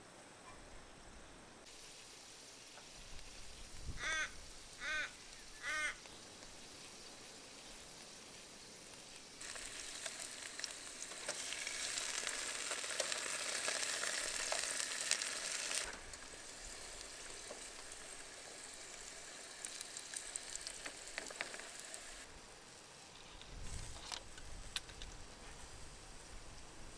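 A bird calls three times about a second apart, then food sizzles loudly as it cooks on hot coals for about six seconds before cutting off abruptly.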